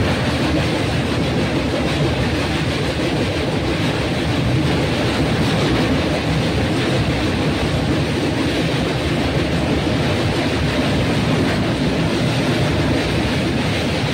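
Train running steadily on the rails, a constant even noise of wheels and carriages.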